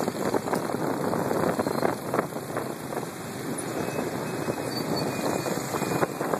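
Wind buffeting the microphone of a moving motor scooter, over the steady running of its small engine and the surrounding motorbike traffic.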